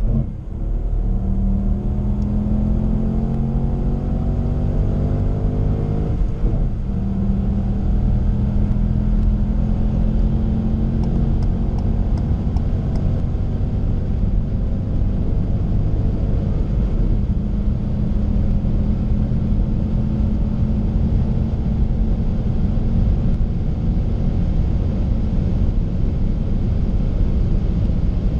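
Ford Fiesta 1.0 EcoBoost turbocharged three-cylinder petrol engine under full throttle, heard from inside the cabin. The engine note drops briefly at gear changes near the start and about six seconds in, then pulls steadily at high revs through the upper gear toward 200 km/h.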